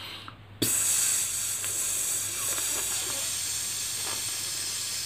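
A man letting his breath out in one long, steady hiss through his upper front teeth, starting about half a second in and slowly fading: a controlled slow exhalation in a breath-lengthening exercise.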